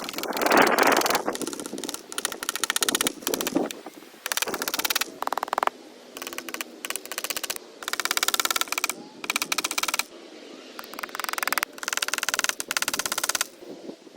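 Staple gun fastening chicken wire: fast runs of sharp clicks in clusters of a second or two, several times over.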